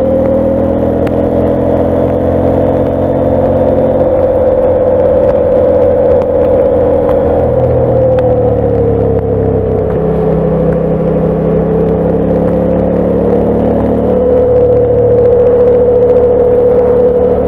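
KTM 890 Adventure's parallel-twin engine running while the motorcycle is ridden at pace, heard from on board with road and wind noise. The engine note shifts up and down a few times as the revs change.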